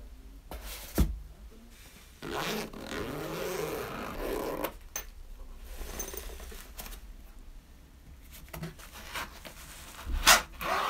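A zippered nylon file case set down with a knock, then unzipped in one long pull of about two and a half seconds. Soft rustling follows as the case is folded open, and near the end come a couple of sharp clicks as the steel files in it are handled.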